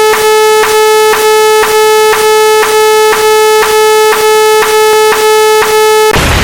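Synthesized sound effects: a loud, steady electronic tone with a regular click about three times a second, broken near the end by a short burst of noise.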